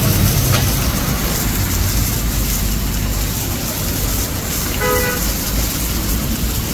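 Steady rush of street noise with a low engine rumble, and one short vehicle horn toot about five seconds in.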